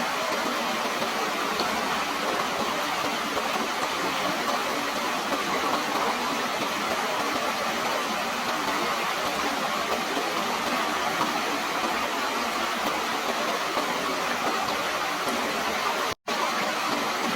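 Steady rushing of running water, an even, unbroken noise that cuts out for an instant about a second before the end.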